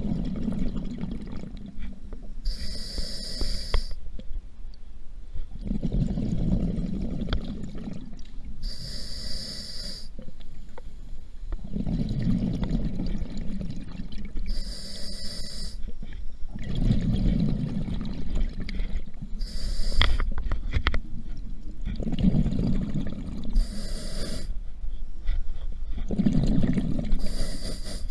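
Scuba diver breathing through a regulator underwater, in a slow steady cycle. Each inhale is a short high hiss, and each exhale is a longer low bubbling rumble from the exhaust valve, about one full breath every five to six seconds.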